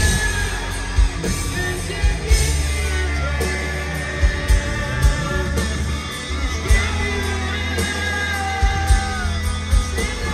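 Hard rock band playing live: electric guitars, bass and drums with a lead singer, the kick drum thumping underneath and held, gliding guitar or vocal lines on top. Heard from within the arena crowd.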